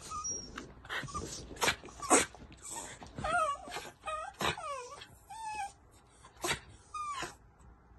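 Small terrier-mix dogs whining and whimpering, the pitch bending up and down, broken by short sharp yips, the loudest about two seconds in. They are whining for attention from the person on the bed.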